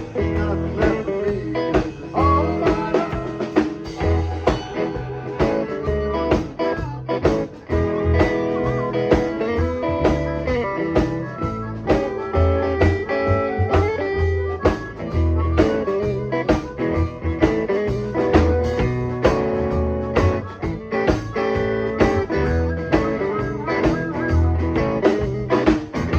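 Blues band instrumental break with a guitar playing lead over bass and drums, with a steady beat.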